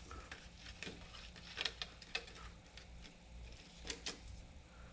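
Faint, scattered light clicks and crinkles of a flexible plastic printed-circuit sheet being handled and laid onto the back of a gauge cluster housing, with a low steady hum underneath.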